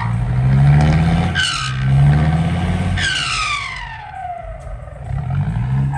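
Loaded diesel dump truck revving hard as its wheels spin in slippery mud without getting out. A high whine rises briefly about one and a half seconds in, and another falls steadily in pitch from about three seconds in as the revs drop away.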